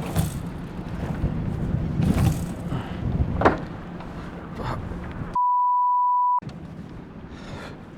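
Wind rushing over the microphone with a few small knocks, cut by a one-second 1 kHz censor bleep about five and a half seconds in, during which all other sound drops out.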